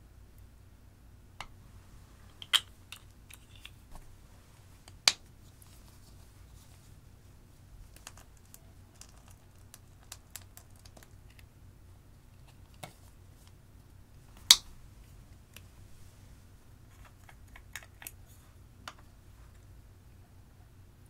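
Sparse small clicks and taps of plastic makeup pots, caps and bottles being handled over glass dishes, with three sharper clicks standing out a couple of seconds in, about five seconds in and about halfway through.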